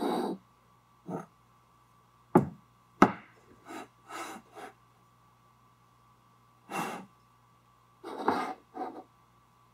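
A piston and steel cylinder barrel handled on a workbench: two sharp knocks about half a second apart, a little over two seconds in, then several short rubbing, scraping sounds as the piston with its freshly fitted rings is worked into the cylinder.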